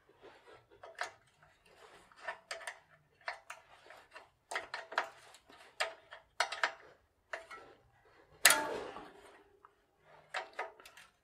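Irregular small metallic clicks and taps of a spanner, nut and bolt as the coaster brake reaction arm's clamp strap is fastened to the bicycle frame. One louder metal clank with a short ring comes past the middle.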